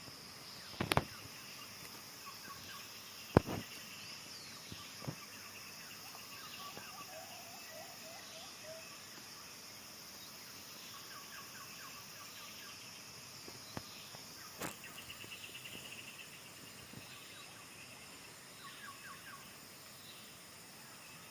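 Outdoor ambience of a steady high-pitched insect drone with small birds chirping in short repeated runs throughout. Sharp clicks come near the start, about three seconds in, and again around fourteen seconds.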